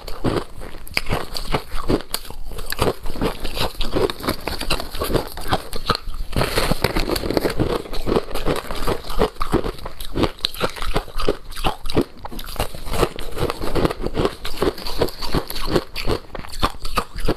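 Ice topped with passion fruit pulp being bitten and chewed close to lapel microphones: dense, rapid, crisp crunching throughout. A louder crunch comes about six and a half seconds in.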